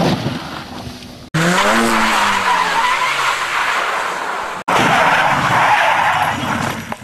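Rally cars sliding on loose gravel, tyres skidding amid noisy rushing. In the middle stretch a racing engine revs up briefly, then its note falls away. The sound cuts off abruptly twice where the clips change.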